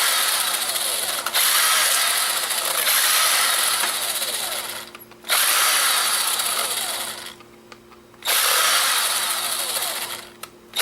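Small electric screwdriver whirring in long runs as it backs out tiny screws, its pitch wavering under load. It stops briefly about five seconds in, for about a second just before eight seconds in, and again just before the end.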